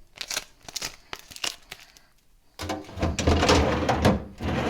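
A run of light clicks and taps, then, about halfway in, plastic wrapping crinkling and rustling as it is handled, with a few low knocks.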